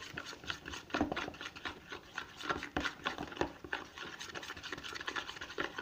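A utensil stirring thick PVA glue and acrylic paint in a plastic bowl: irregular scraping against the bowl with sticky little clicks.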